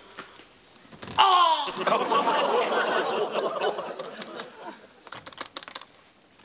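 Studio audience laughing. The laughter breaks out suddenly about a second in and dies away over the next three seconds or so, and a few light clicks follow near the end.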